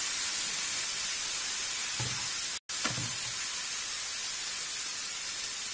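Ground turkey sizzling steadily in a hot frying pan, cut by a momentary dropout to silence about two and a half seconds in.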